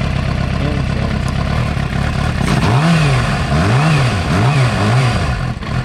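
2006 Suzuki GSX-R750's inline-four engine idling, then revved in four quick throttle blips that rise and fall before it settles back to idle. The bike is being checked for a rough idle that the owner thinks is probably caused by a faulty coil pack.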